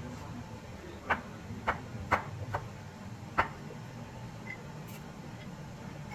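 Five sharp, irregularly spaced knocks in the first half, typical of kitchen utensils knocking, over a steady low hum.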